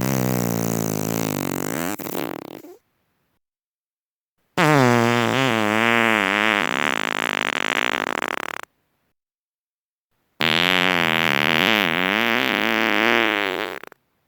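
Three long farts, each lasting three to four seconds with a wavering pitch, separated by short silences. The first is already sounding at the start and trails off about three seconds in.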